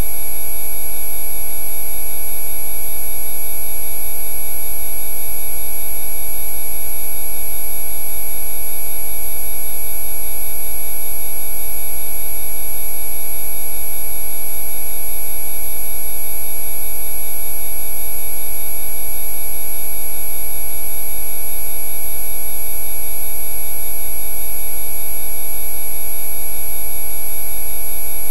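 Synthesized Rife frequency tones: many steady electronic sine tones sounding together, from low to very high pitch, with a low hum underneath, unchanging throughout.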